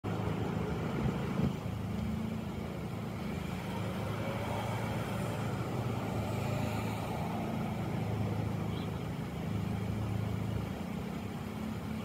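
A steady low mechanical hum with a constant pitch, like an engine running.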